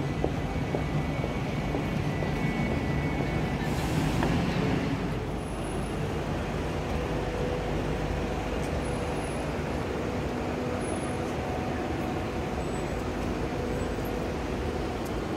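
Street traffic noise from passing cars and buses, steady throughout, with a brief hiss about four seconds in.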